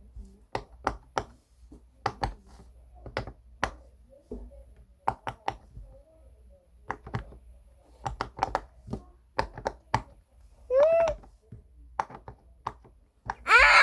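Silicone pop-it push-pop fidget toy having its bubbles pressed in, one after another, giving a string of short pops in uneven clusters. A brief vocal sound comes about eleven seconds in.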